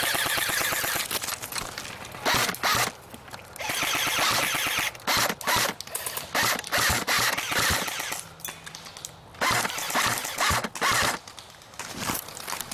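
Airsoft guns firing in short bursts and single shots: a rapid clatter of pellets being fired, with the mechanical whir of the electric guns' gearboxes.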